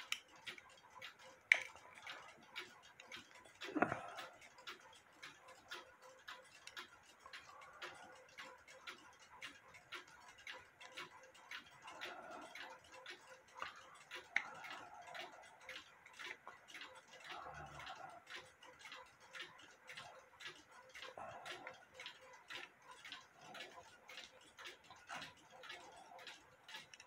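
Faint, rapid and even ticking of a small mechanical clock, with occasional clicks and a knock from a small metal tool working at the clock's hands.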